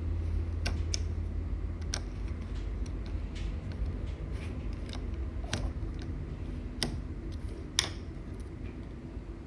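Scattered small clicks and ticks of a small screwdriver driving the case screws back into a plastic battery pack, about half a dozen separate ticks spread over several seconds. A low background rumble drops away about two seconds in.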